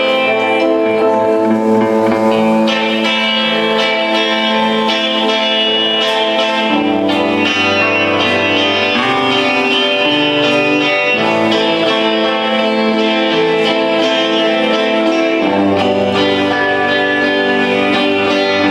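Rock band playing live: electric guitar chords ringing over bass, the chords changing every few seconds.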